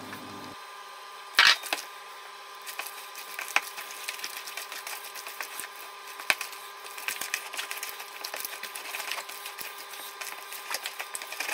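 Hands kneading and mixing seasoned sausage meat for ham sausage in a plastic bowl: a run of soft, irregular smacks and clicks, with a sharper knock about a second and a half in, over a faint steady hum.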